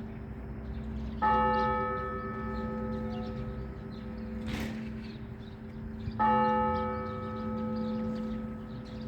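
Orthodox church bell tolled twice, about five seconds apart. Each stroke rings on and fades slowly over a steady lingering hum, ringing to call people to the service. A brief rush of noise falls between the strokes.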